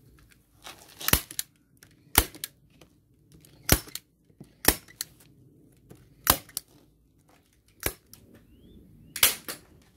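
Hand staple gun driving staples through reinforced greenhouse film into a wooden frame: seven sharp snaps, one roughly every second or so.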